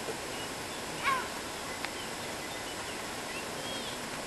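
Steady outdoor background noise at a lake shore, with a few faint short chirping calls, one about a second in and another near the end.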